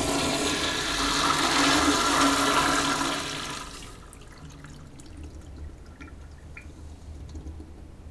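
A 1957 Crane Walton floor-mount toilet flushing: a loud, powerful rush of water that falls away about four seconds in to a much quieter water sound.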